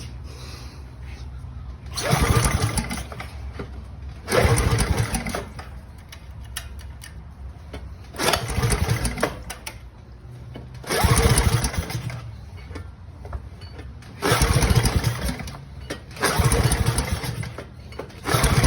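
Small gas engine being pull-started by hand: the recoil starter is pulled about seven times, each pull turning the engine over for about a second, and it fails to catch.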